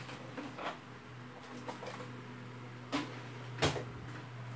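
A few short clicks and knocks, the loudest near the end, over a steady low electrical hum.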